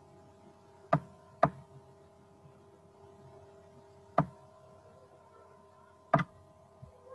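Four sharp computer-mouse clicks: two close together about a second in, one near the middle and one near the end. Under them runs a faint steady electrical hum with several held tones.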